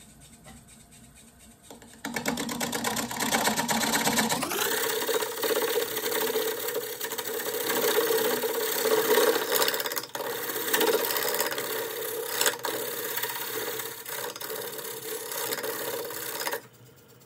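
Woodturning lathe spinning a square walnut and cherry bowl blank while a turning tool cuts a tenon on it: a loud, rough cutting noise starts about two seconds in, rises in pitch about four seconds in, and stops shortly before the end.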